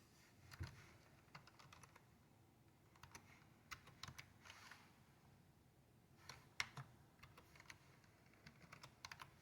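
Faint typing and clicking on a computer keyboard, in short irregular runs of keystrokes.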